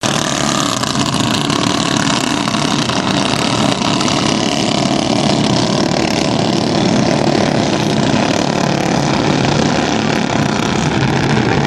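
Race engines running steadily at speed.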